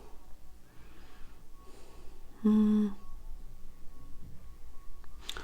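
A woman's short hummed "mm" about halfway through, at one steady pitch, against quiet room tone.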